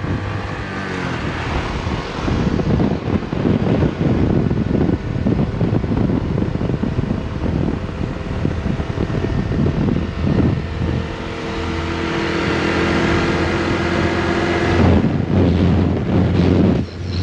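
A small motorcycle or scooter engine running while riding, with wind noise on the microphone.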